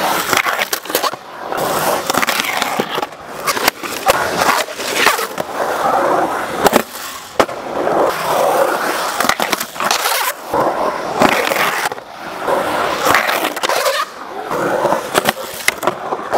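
Skateboard riding a concrete bowl: the wheels' rolling rush swells and fades with each pass through the bowl, broken by many sharp knocks of the board and trucks striking the concrete.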